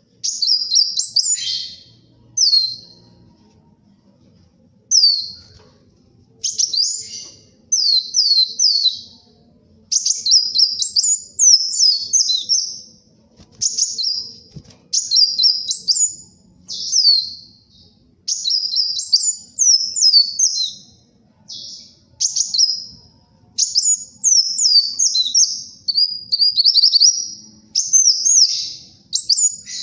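Kolibri wulung sunbird singing energetically (gacor): phrases of rapid, high, twittering notes, each a second or two long, repeated after short pauses.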